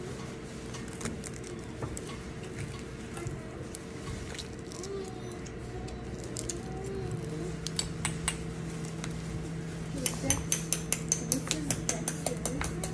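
A plastic spoon tapping and cracking the shell of a balut egg: scattered taps at first, then a quick run of about four taps a second near the end. A steady low hum and faint voices sit underneath.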